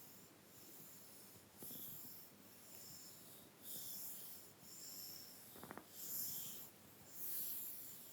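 Soft makeup brushes swept lightly over the skin of a back: a string of quiet, hissing strokes, each under a second long. A short low rattle sounds about two-thirds of the way through.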